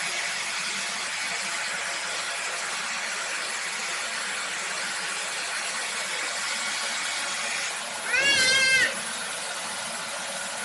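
A vacuum cleaner running with a steady hiss. About eight seconds in, a baby gives one short, loud, high-pitched squeal that rises and falls.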